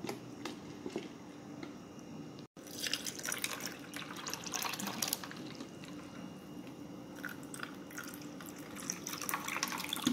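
Chilled water poured into glasses of mango squash over ice cubes: liquid splashing and dripping, in uneven spurts, with a brief dropout about two and a half seconds in.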